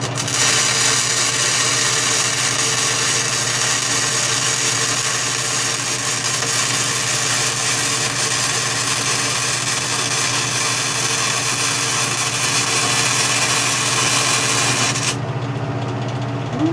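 Century FC90 flux-core wire-feed welder's arc crackling steadily during a test bead at maximum voltage and wire-feed speed 9, over the machine's steady low hum. The arc cuts off abruptly about fifteen seconds in.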